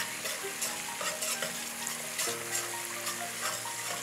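Curry paste of curry powder, onion and hot pepper sizzling in oil in a pot while a metal spoon stirs and scrapes through it, with a steady fine crackle and light scraping clicks. The oil has separated from the curry, a sign that the curry is almost ready.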